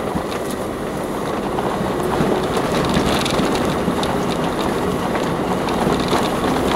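Vehicle cabin noise while driving a rough, stony green lane: steady engine and tyre noise, with a constant run of small knocks, rattles and crunching as the tyres roll over loose stone.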